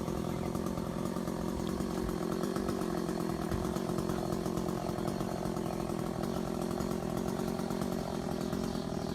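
Chainsaw engine running steadily at a constant pitch, without revving up or down.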